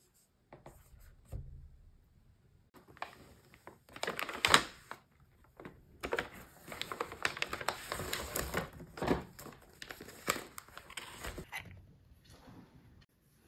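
Paper shopping bag rustling and crinkling as it is handled, with scattered light clicks and knocks. The busiest stretch is in the second half, and it dies down near the end.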